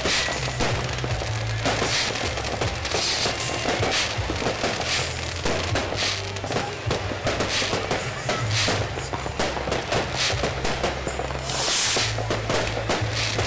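Fireworks going off: many bangs and crackling bursts in quick succession, with a louder crackling burst near the end. Music plays underneath.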